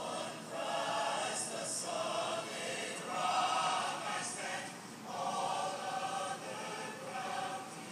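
Large mixed choir singing without spoken words, in phrases about a second long with short breaks between them.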